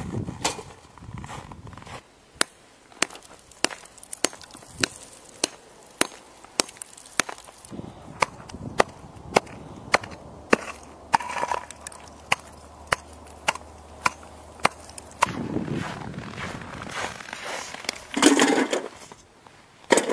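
Steady chopping blows, a sharp knock roughly every 0.6 seconds for about thirteen seconds, then a louder noisy burst near the end.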